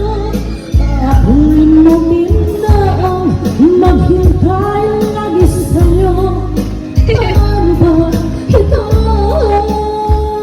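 Tagalog pop song with a female singer over a steady bass beat.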